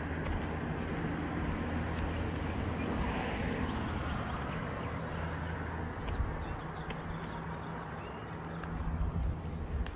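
Outdoor ambience: a steady low hum of road traffic, with a short bird chirp about six seconds in and a few light clicks.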